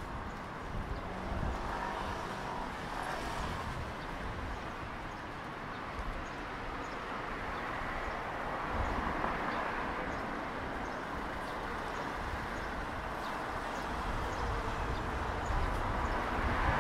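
City street ambience: steady traffic noise from cars passing on the road.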